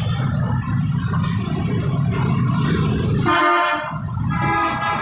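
Busy street traffic with a steady low engine rumble, then a vehicle horn honking twice near the end: one short blast, and a second that is still sounding as the clip ends.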